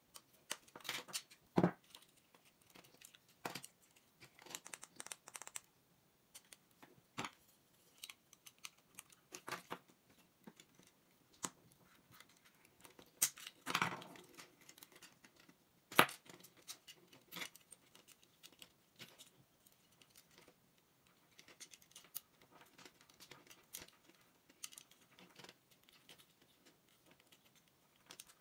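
Scattered small clicks, taps and scrapes of plastic and metal parts being handled and pried apart while an alarm clock is disassembled, including needle-nose pliers working inside its plastic case. The sharpest clicks come about one and a half seconds in, around fourteen seconds and at sixteen seconds.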